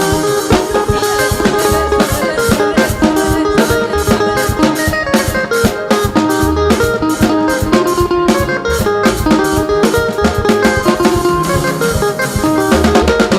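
Lively praise music with electric guitar, drum kit and bass playing a steady fast beat.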